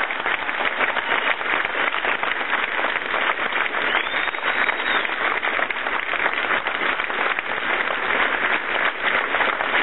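A large outdoor crowd applauding steadily, many hands clapping at once.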